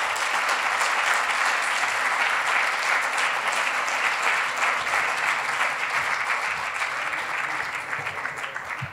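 Audience applauding steadily, dying down gradually near the end.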